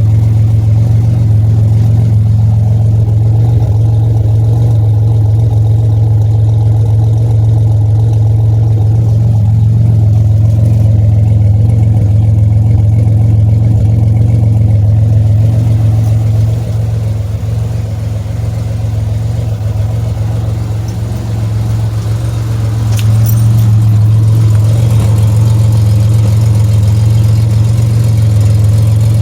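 Pontiac Grand Prix engine running with a steady low hum; the sound drops back for several seconds past the middle, then comes back up.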